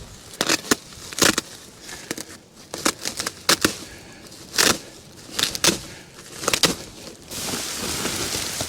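Sacks of fescue and ryegrass seed being cut open with a pocket knife and handled: a series of short, sharp rustles and crinkles. Near the end a steady hiss sets in as the grass seed pours into the spreader's hopper.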